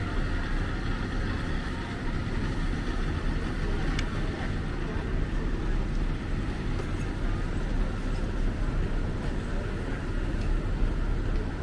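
Steady rumble of a train running on the tracks.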